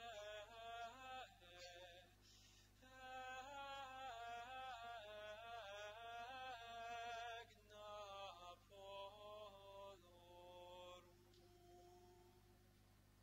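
Faint liturgical singing: one slow melodic line with long held notes, stopping about eleven seconds in.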